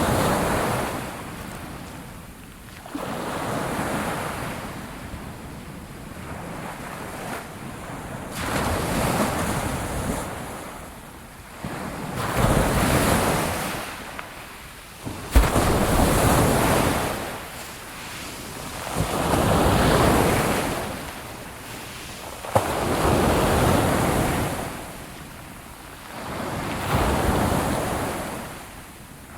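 Ocean waves breaking and washing up, each swell of surf rising and falling away about every four seconds. A brief sharp low thump comes about halfway through.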